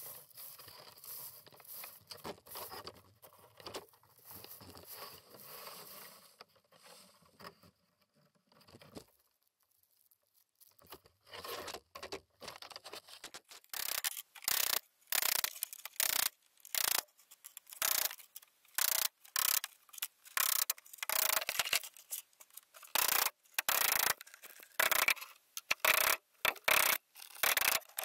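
Rustling and scraping of an ice-covered, frozen tarp being handled on OSB roof sheathing. After a short pause comes a long run of sharp hammer blows driving nails into the roof deck, about one to two strikes a second.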